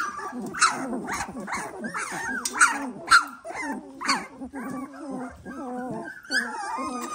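A litter of 18-day-old Dalmatian puppies crying and squealing: many short, rising-and-falling high cries in quick succession, several voices overlapping. The puppies are unsettled after being moved to a new pen.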